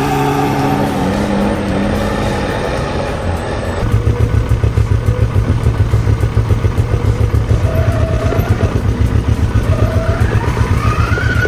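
Heavy truck's diesel engine labouring on a muddy logging road, its note sinking slightly at first. From about four seconds in it becomes a rapid low pulsing, and near the end it revs up with a rising pitch.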